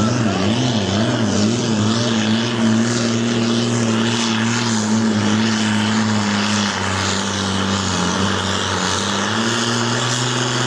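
Ford pulling tractor's diesel engine running flat out under load as it drags a weight-transfer sled. Its pitch wavers up and down for the first couple of seconds, then holds steady and dips slightly about two-thirds of the way in.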